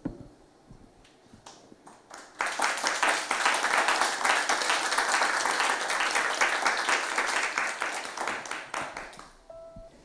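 Small audience applauding: a few scattered claps, then general clapping from about two seconds in that thins out and dies away near the end.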